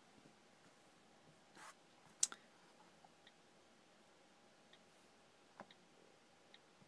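Faint, scattered clicks of the iPad's on-screen keyboard as a password is typed, a few short ticks at a time. Around two seconds in there is one sharper click, with a few knocks from handling the tablet.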